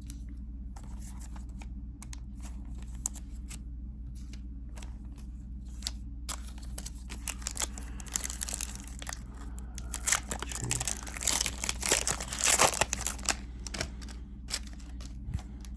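A foil trading-card booster pack being torn open and its wrapper crinkled, in scattered crackles that grow densest and loudest about ten to thirteen seconds in, over a low steady hum.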